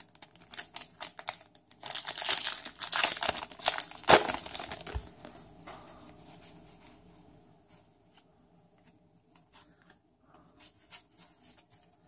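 Foil booster pack wrapper crinkling and tearing open, loudest from about two to four seconds in, then fading to light rustles and a few scattered clicks.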